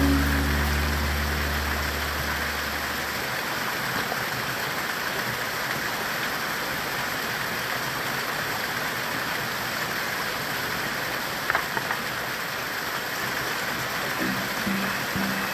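A shallow rocky forest stream running, a steady rush of water. A couple of brief splashes about eleven seconds in come from a person wading through it.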